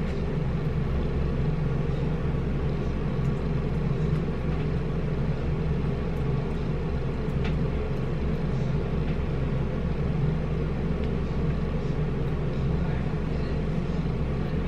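Steady low rumbling hum throughout, with a few faint clicks from eating with a fork and chewing.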